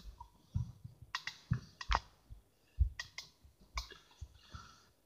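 Irregular clicks and soft knocks of handling noise, from fingers tapping and rubbing right against the phone and its microphone, with a deeper knock about three seconds in.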